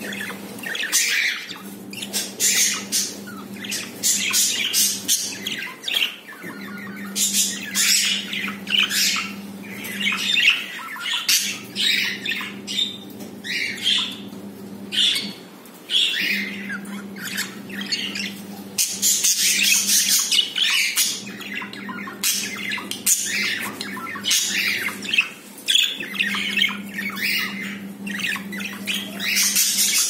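Budgerigars chattering: a near-continuous run of short, high squawks and chirps.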